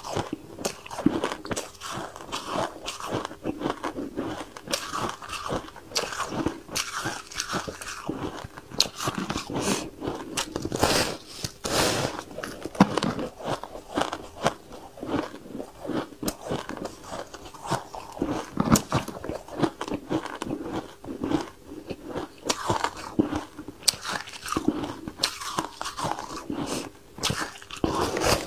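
Someone biting and chewing chunks of white ice: a dense, continuous run of crisp crunches and crackles, close on a clip-on microphone.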